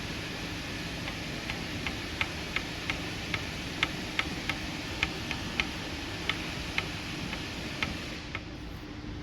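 Ford Fiesta 1.0 EcoBoost three-cylinder engine running with a sharp, irregular ticking knock, about two to three knocks a second over a steady low hum; the knock stops near the end. The knocking is put down to improper maintenance.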